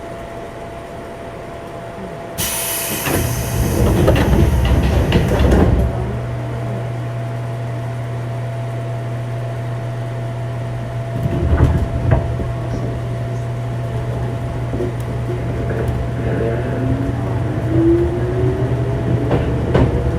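Running sound inside a 205-0 series electric multiple unit's motor car, which has inner-fan traction motors. About two seconds in, a loud hiss lasts some three seconds. Then a steady low hum, a burst of wheel clatter, and near the end a slowly rising motor whine as the train gains speed.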